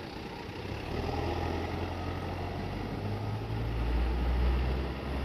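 A vehicle engine running with a steady low hum that sets in about a second in, grows loudest about four seconds in, and eases off near the end.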